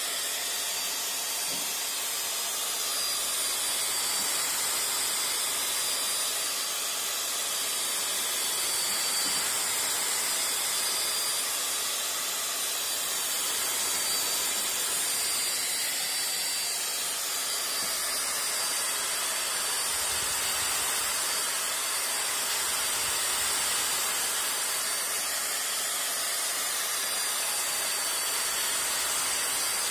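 Electric drill spinning a buffing pad, running steadily with a high whine over a hiss.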